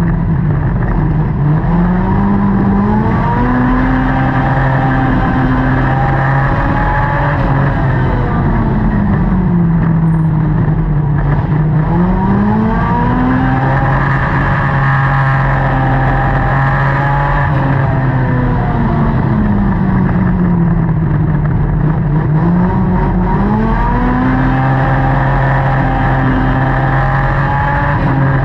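Dirt-track race car's V8 engine at racing speed, heard from inside the cockpit. The revs drop as it lifts into each turn and climb back up on the straights, in a repeating lap cycle of about ten seconds.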